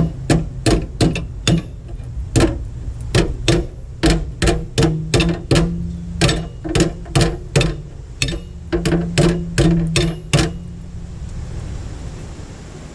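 A hammer striking steel over and over, about two to three blows a second, each with a short metallic ring, as a small patch piece is shaped for rust repair. The blows stop about ten seconds in, and a steady low hum runs underneath.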